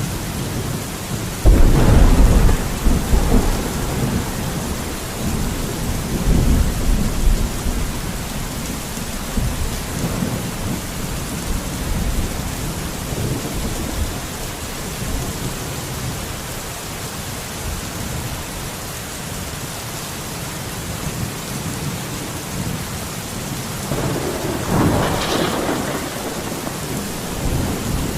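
Steady rain with thunder. A loud clap of thunder comes about a second and a half in and rumbles on for several seconds. A second, weaker rumble of thunder comes near the end.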